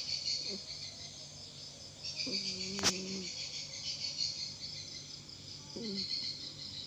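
A cat snoring with low, humming snores in a slow breathing rhythm: a short one near the start, a longer one lasting about a second in the middle, and another short one near the end. Crickets chirr steadily throughout, and there is a single sharp click about three seconds in.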